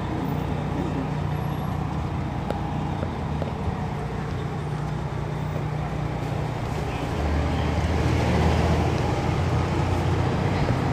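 Detroit Diesel Series 60 inline-six diesel of an MCI D4000 coach bus, heard running from inside the bus. About seven seconds in, its note drops deeper and grows louder.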